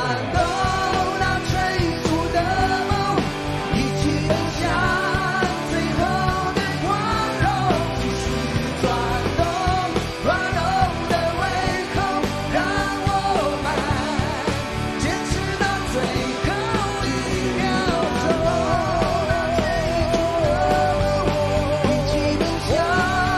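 Live rock band playing: male lead vocals singing over acoustic and electric guitars, bass and drums, with some long notes held with vibrato.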